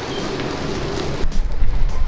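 Oyster omelette frying and sizzling on a hot pan for about a second, then a sudden switch to background music with a strong, pulsing bass beat.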